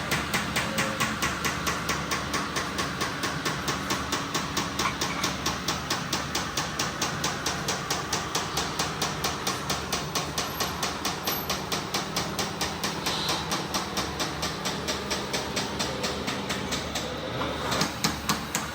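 Steady, rapid mechanical hammering from RC construction machinery, about five evenly spaced knocks a second, with a few louder knocks near the end.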